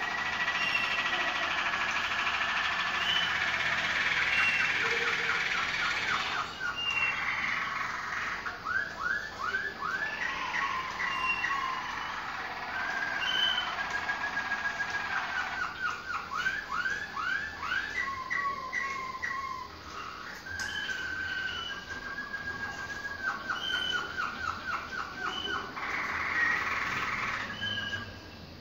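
Malinois Waterslager canary singing a long, continuous song: stretches of rolling trill, runs of quick rising notes at about four a second, and long steady whistled notes.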